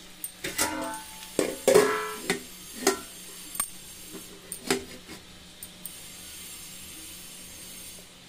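Stainless steel plate clanking and ringing against a steel kadai as it is set over the pan for a lid: about seven irregular metallic knocks in the first five seconds.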